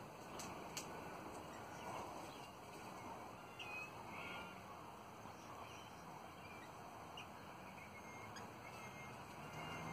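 Twenty-eight parrots (Australian ringnecks) giving a few faint, short chirping calls while feeding in a tree, over steady low background noise. There are a couple of sharp clicks within the first second.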